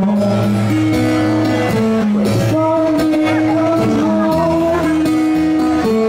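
A man and a woman singing into microphones over an acoustic guitar accompaniment.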